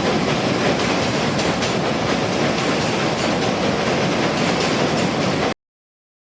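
Train running on the rails, heard from on board: a steady rumble with the clickety-clack of wheels over the track. It cuts off abruptly about five and a half seconds in, leaving dead silence.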